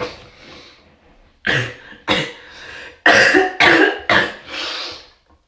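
A woman sneezing in a rapid fit, about six sudden sneezes in a row, loudest just past the middle, set off by a nasal swab.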